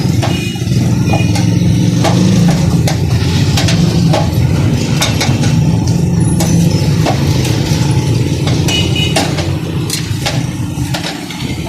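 A steady low motor drone, with scattered sharp clicks and knocks over it. The drone eases off somewhat near the end.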